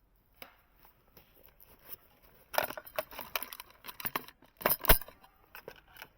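Irregular clicks, rattles and knocks of handled equipment, in clusters from about two and a half to five seconds in, with one heavier knock near the five-second mark.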